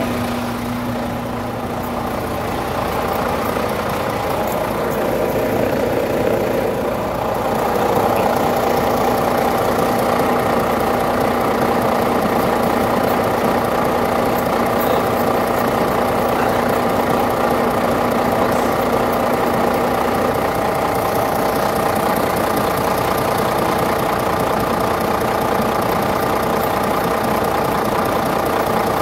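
Truck engine idling steadily, a constant drone that gets a little louder about eight seconds in.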